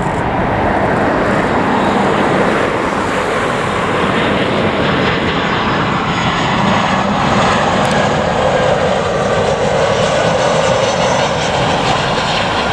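Airliner's jet engines, a loud, steady rush of engine noise.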